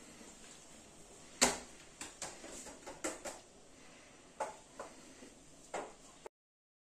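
Scattered sharp knocks and clicks, the loudest about a second and a half in, with the rest coming irregularly after it. The sound cuts off abruptly near the end.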